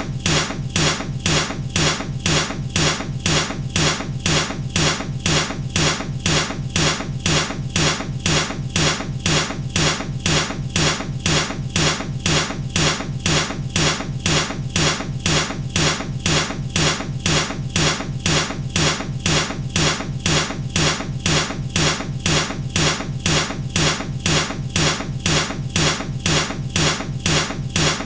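A baseball bat striking something over and over in a loop: sharp, solid hits with a heavy low thud, evenly spaced a few times a second.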